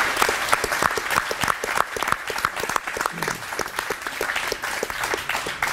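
Applause: many people clapping at once, a dense, steady patter of hand claps.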